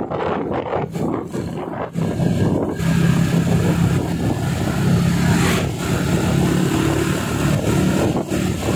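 Engine of a moving road vehicle running at a steady hum, with wind and road noise rushing over the microphone.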